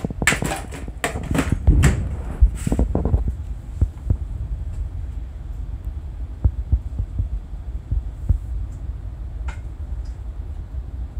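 Popcorn popping: a dense crackle of pops in the first three seconds that thins to scattered single pops, over a low steady hum.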